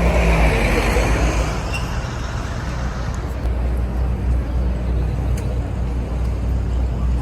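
City street traffic noise: a steady low rumble of passing vehicles, louder in the first second or so as a vehicle goes by, then settling.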